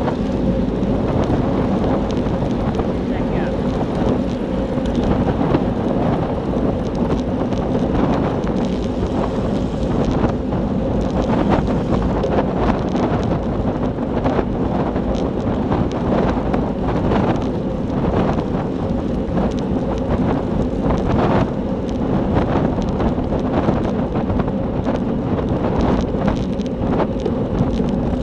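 Wind rushing over a handlebar-mounted camera's microphone on a road bike at race speed, with a steady low drone and frequent small knocks and rattles.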